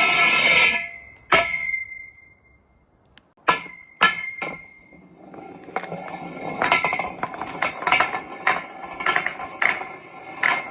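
Marbles clacking and rolling through a marble run. A dense rattle of many marbles cuts off about a second in, then a few single clinks ring briefly, and from about halfway on a quick, irregular run of clicks and clacks builds up.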